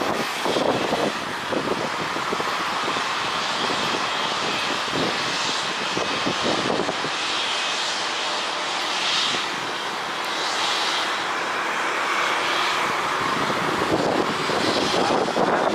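Jet engines of a Boeing 737 airliner on its landing approach, a steady jet rush whose hiss swells and fades several times, with strong gusty wind buffeting the microphone.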